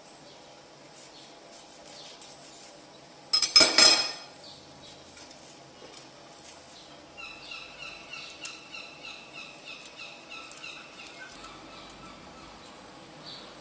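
Quiet kitchen handling of a halved bitter gourd, with one brief harsh scrape about three and a half seconds in. Later a bird chirps a quick run of short repeated notes, about four a second, for around four seconds.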